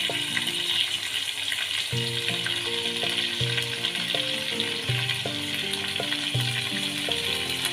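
Minced beef sizzling and bubbling in hot oil in a wok on a high flame, a steady hiss as its released water boils off. Background music of held, stepping notes plays underneath.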